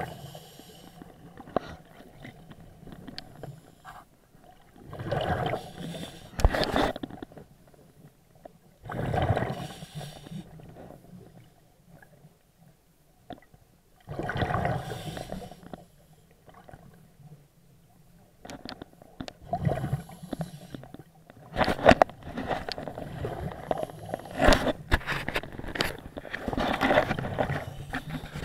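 A scuba diver's breathing heard underwater: exhaled breaths gurgling out of the regulator as bubble bursts of a second or two, about every four to five seconds. Near the end come denser scraping and sharp knocks from close by.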